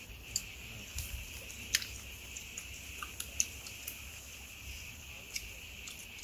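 People eating steamed apple snails by hand: scattered small clicks of toothpicks and shells, with chewing.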